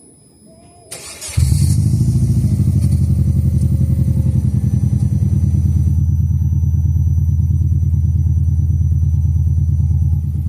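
Subaru Legacy BH5's flat-four boxer engine cranked and catching about a second in, then idling loud and steady through a Kakimoto Hyper Fullmega N1+ Single exhaust with its silencer insert removed. The idle settles slightly lower near the end.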